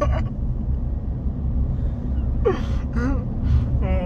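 Steady road rumble inside a moving car's cabin. From about two and a half seconds in, a young man with gauze in his mouth after wisdom tooth removal makes short wordless vocal sounds, then a drawn-out moan that slowly falls in pitch near the end.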